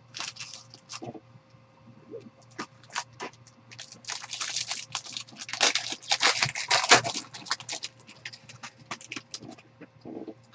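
Trading-card pack wrapper being torn open and crinkled, with the cards handled and shuffled: a run of crackles and clicks, scattered at first and densest in the middle.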